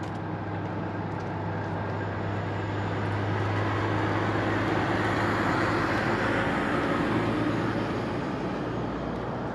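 Motor vehicle noise: a steady low engine hum, with a louder rush of passing traffic that builds over a few seconds and fades toward the end.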